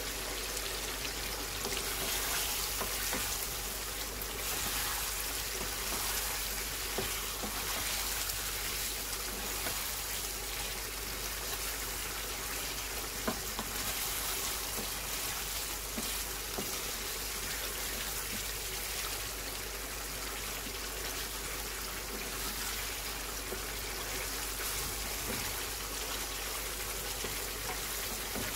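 Chicken pieces in a yogurt marinade frying in a nonstick pan: a steady sizzle, with a wooden spoon stirring and one sharp knock about halfway through.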